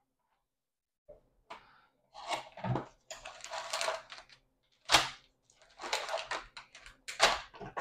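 Packaging being handled during an unboxing: cardboard and plastic rustling and scraping in irregular bursts, with a sharp knock about five seconds in.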